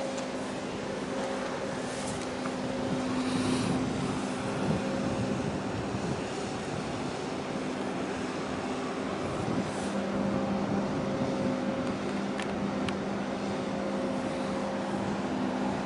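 Steady drone of a large container ship's engine machinery passing close by, with several low hum tones fading in and out over a continuous rushing noise.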